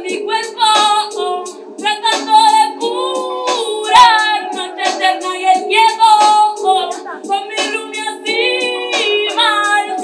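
A woman singing a melodic line with held, gliding notes into a handheld microphone, over steady sustained backing music.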